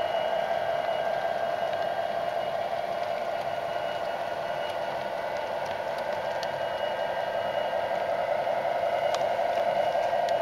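O scale model Amtrak Superliner passenger cars rolling past on model track: a steady rolling rumble with a few faint clicks, growing slightly louder near the end.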